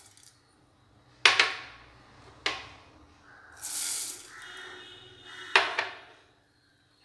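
Whole coriander seeds poured from a cup into a dry nonstick frying pan, rattling onto the pan about three and a half seconds in. Sharp knocks of the cup against the pan come about a second in, again a second later, and near the end.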